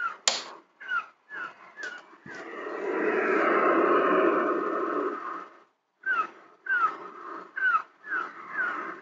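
Ocean-wave projector lamp's built-in speaker playing its wave soundscape: short falling cries repeating about twice a second, then a wave washing in and fading away, then more of the cries. A single sharp click comes near the start.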